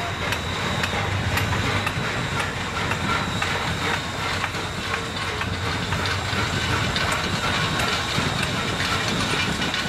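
PKP Ol49 class 2-6-2 steam locomotive rolling slowly past: a steady mix of steam hiss and running noise over a low rumble, with faint regular clicks from the wheels and running gear.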